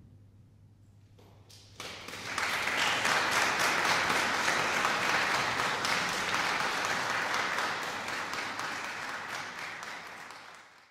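Audience applause breaking out about two seconds in after a hushed pause with a faint low hum, holding steady, then thinning near the end before cutting off suddenly.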